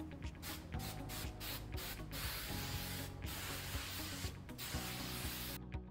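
Aerosol hairspray (TRESemmé Two ultra fine mist) hissing from the can in a series of sprays: short bursts at first, then longer, steadier sprays, the last one stopping shortly before the end.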